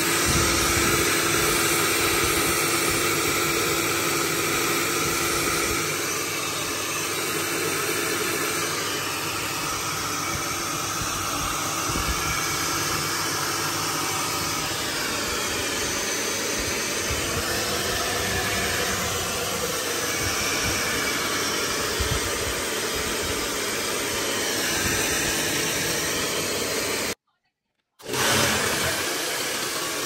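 Hand-held hair dryer blowing steadily into a freezer compartment to melt the built-up ice and defrost it. It cuts out for about a second near the end, then carries on.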